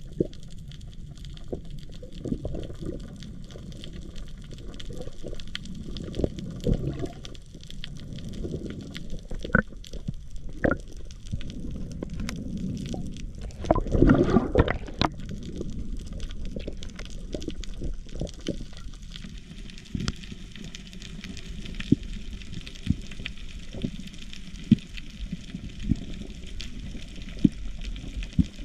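Water sloshing and gurgling against the camera, with scattered sharp clicks throughout and a louder burst of bubbling or splashing about 14 seconds in.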